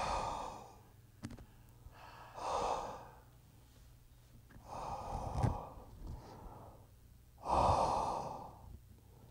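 Heavy breathing close into a handheld microphone: four slow, noisy breaths a couple of seconds apart.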